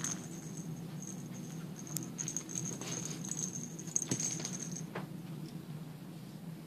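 A kitten bats and pounces on a rattling cat toy, which gives off a high jingling that comes and goes and stops just before five seconds in. There are a few sharp clicks and taps, over a low steady hum.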